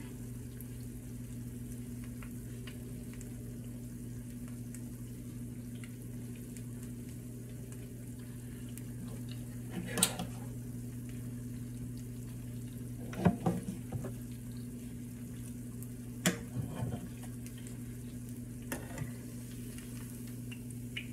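A conch fritter shallow-frying in oil in a nonstick pan, a steady faint sizzle over a low hum. A few short knocks, likely utensil on pan, come through during it.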